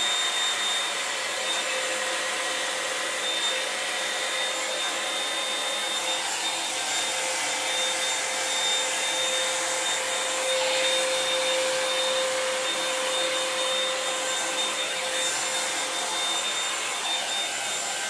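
Revlon One-Step hair dryer and volumizer brush running steadily as it is worked through hair: a rush of blown air with a steady motor whine.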